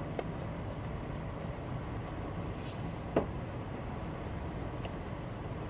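Steady low background rumble of a bookstore's room tone, with a few faint clicks and one slightly louder knock about three seconds in.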